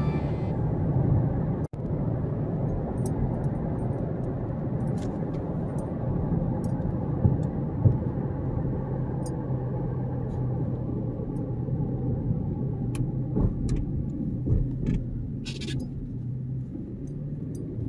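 Car driving at steady speed, heard from inside the cabin: a steady low rumble of engine and road noise, with a few faint ticks and rattles.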